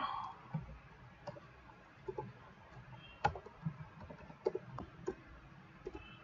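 Computer keyboard typing: sparse, irregular keystroke clicks.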